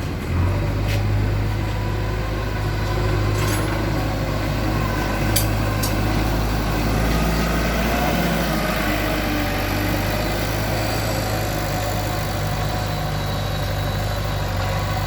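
JCB 3DX backhoe loader's diesel engine running steadily, with a few short sharp clicks in the first six seconds.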